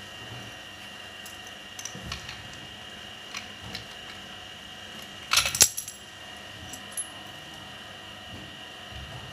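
Light metal clicks, then a short metallic clatter about five and a half seconds in, as a hinged wing-nut vacuum flange clamp is fitted around the hose fitting on a vacuum pump's inlet.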